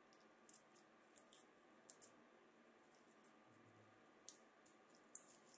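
Faint crinkling of a coaxial cable's aluminium foil shield being pressed and folded between the fingers: a dozen or so small, crisp, irregular ticks.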